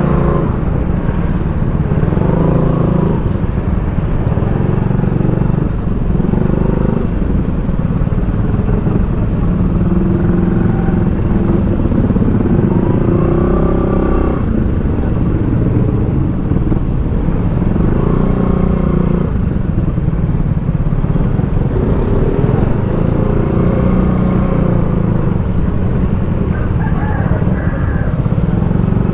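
Motorcycle engine running on the road, its pitch rising and falling every few seconds as the rider works the throttle, under a steady low rumble.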